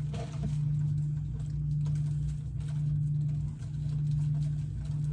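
A steady low hum, swelling and fading at an even pace about once a second.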